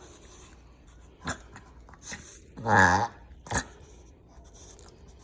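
Chihuahua having a reverse-cough fit: short, sharp breathing sounds about a second and two seconds in, then a longer pitched honk near three seconds and another short gasp just after. The vet calls it the reverse cough common in Chihuahuas; the owner suspects more, as the dog seems to struggle to swallow or cough something up.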